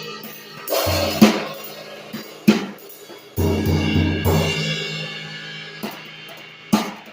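Drum kit played with vintage Sabian cymbals: sharp strikes with ringing tails, and a long ringing cymbal wash in the middle, over music with a steady bass line.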